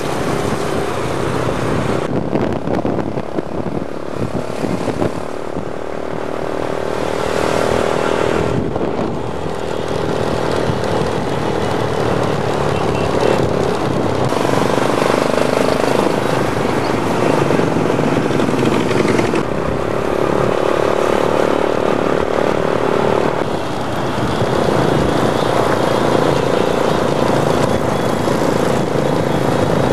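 Motorcycle engines droning steadily on the move, the riding vehicle's own engine mixed with a convoy of motorcycles around it, with a few brief dips in the drone.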